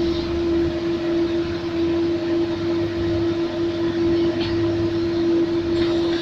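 Komatsu PC200 hydraulic excavator's diesel engine running steadily, with a strong steady whine held over a rumbling low drone.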